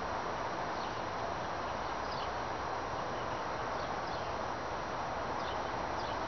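A steady rushing noise like wind, unbroken and without gusts, strongest in the middle range: the unexplained wind-like sound that persists on a windless day. A few faint, short, high chirps sound over it.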